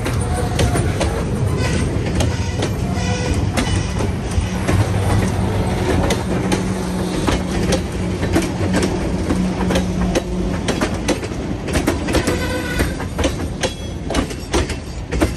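Loaded freight cars rolling past close by: steel wheels clacking over rail joints in a steady run of sharp clicks, with a brief high wheel squeal about three-quarters of the way through. The noise eases slightly as the last tank car passes near the end.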